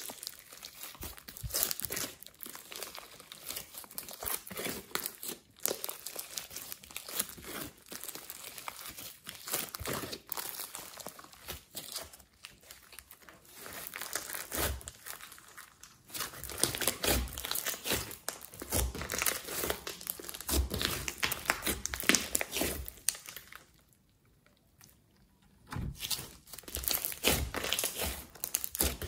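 Thick slime mixed with makeup and glitter being squished, pressed and stretched by hand: a dense run of small sticky crackles and clicks. It goes nearly silent for about two seconds near the end, then the crackling starts again.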